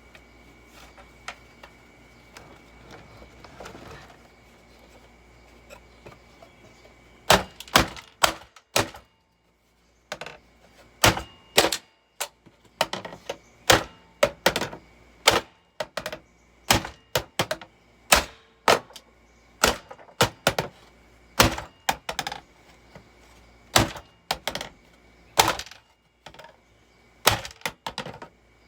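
A long series of hard, sharp blows and cracks, starting about seven seconds in and coming irregularly about one to two a second: an object being struck repeatedly to smash it.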